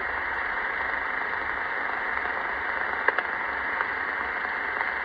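Steady hiss of empty-channel band noise from a 1978 President Washington CB transceiver's speaker, receiving on upper sideband with no station transmitting. A few faint static clicks come about three seconds in.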